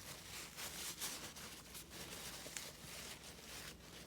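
Faint rustling of a paper towel wiping excess shock oil off a freshly refilled RC buggy shock, with a few small ticks of handling.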